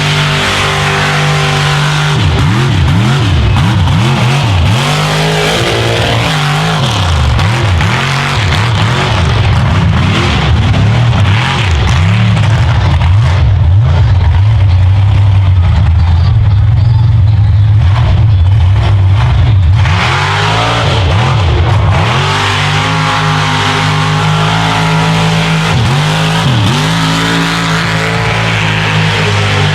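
Pit Boss mega truck's engine revving hard again and again under load in deep mud, its pitch repeatedly rising and falling; the run is loudest about halfway through.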